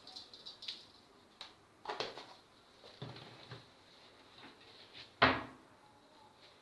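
Kitchen handling sounds: a series of light knocks and clatters, with one sharper, louder knock about five seconds in.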